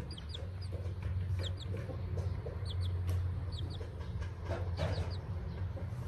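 A young chick cheeping: short, high, slightly falling peeps, mostly in pairs, repeating about once a second over a steady low hum.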